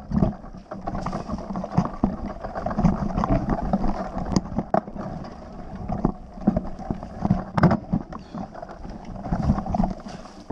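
Mountain bike riding down a rough dirt singletrack: tyres rolling over dirt and stones, with irregular knocks and rattles from the bike, and wind on the microphone.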